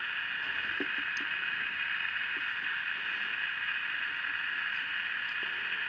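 Candle pocket transistor radio's small speaker giving a steady hiss of static, with a few faint ticks.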